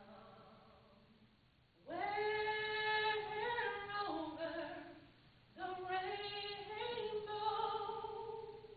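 A woman singing solo and unaccompanied: a soft opening note, then two long, loud phrases of held notes with a short break between them.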